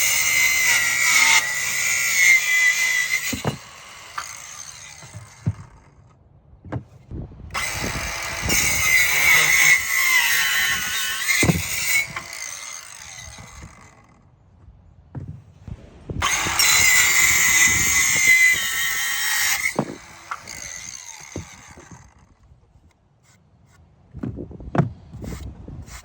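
Ryobi 18V ONE+ 4-1/2 inch cordless circular saw cutting through 2x4 lumber three times, each cut a steady high whine lasting a few seconds. Short knocks of wood being handled fall in the pauses between cuts.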